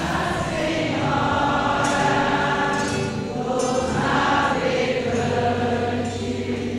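A choir of mixed voices singing a religious hymn, holding long notes that shift from phrase to phrase.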